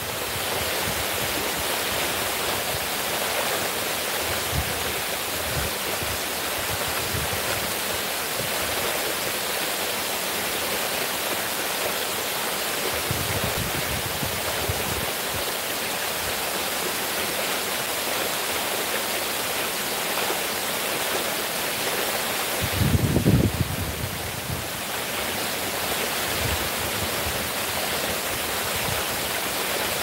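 Artificial stepped waterfall fountain: water cascading down tiered stone steps into a pool, a steady, even rush. About two-thirds of the way in a brief low rumble rises over it for a second or so.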